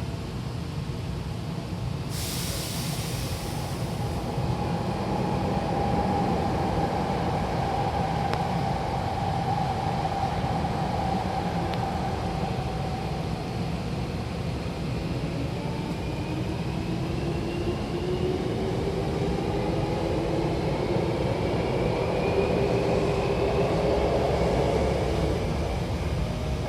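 Hankyu electric train pulling away, heard from inside the car: a short hiss of air about two seconds in, then the running rumble with the traction motors' whine rising in pitch from about halfway on as the train accelerates.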